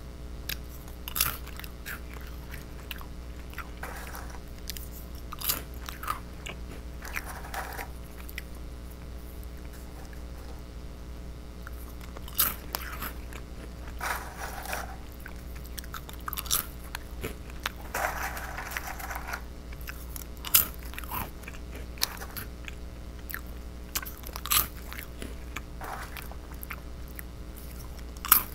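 A person biting and chewing small fish-shaped crackers close to the microphone: sharp crunches every second or two, with softer stretches of chewing between them, over a steady low hum.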